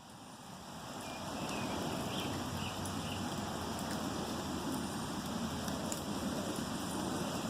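Steady rain falling, fading up over the first couple of seconds and then holding even.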